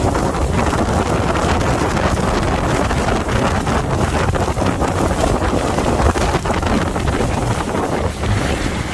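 Wind buffeting the microphone on a moving boat: a loud, steady rumbling rush with no breaks.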